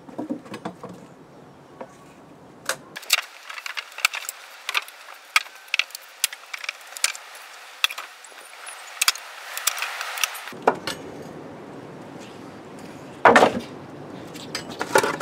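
Wooden pallet being levered apart with a steel pry bar: many sharp cracks and knocks of the boards, with one louder crack near the end.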